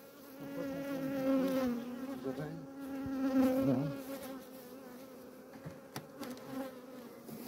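A swarm of honeybees buzzing in a steady, wavering drone around an opened hive, louder in the first half and then fading. The bees are agitated at the hive being disturbed: they are not happy at all.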